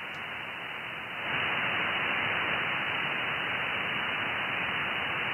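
Receiver hiss from an Icom IC-7610 transceiver listening on the 17-metre band in upper sideband. It is a steady static with no highs, held to voice range by the 2.9 kHz filter, and it gets louder about a second in. It is an empty band, with no station answering the CQ call.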